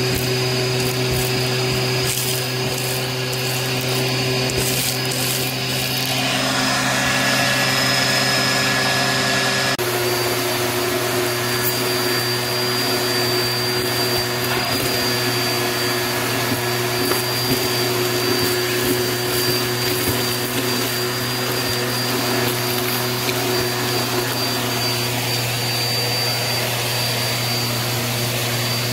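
Bissell Helix Turbo upright vacuum cleaner running steadily, sucking crunchy, gritty dirt and fluff through its hose and crevice tool. There are scattered crackles of debris in the first several seconds, and the motor tone shifts abruptly about ten seconds in.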